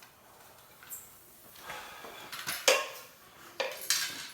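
Metal snake tongs clicking and knocking against hard surfaces: a few scattered sharp clacks, the loudest about two and a half seconds in, with a quick cluster near the end.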